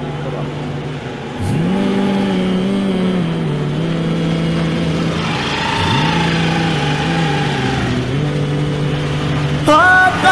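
Motor scooter engine running and revving up twice, its pitch rising about a second and a half in and again about six seconds in. Music starts just before the end.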